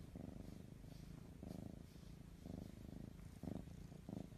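A domestic cat purring faintly close by: a low, fast-pulsing rumble that swells and eases in stretches of about a second.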